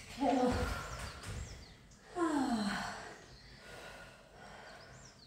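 A woman sighing out loud twice as she exhales through a stretch, each sigh falling in pitch: a short one at the start and a longer one about two seconds in. Faint bird chirps sound in the background.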